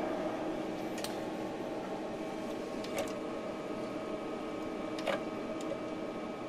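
A powered-up desktop PC's fans and power supply running with a steady hum and a faint whine of several tones. Three light clicks come about a second, three seconds and five seconds in, as a finger presses the CD-ROM drive's eject button.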